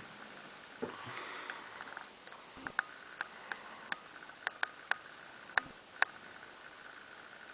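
A sleeping man breathing noisily through the nose: one soft snuffling breath about a second in, then a run of short, sharp, irregular clicks.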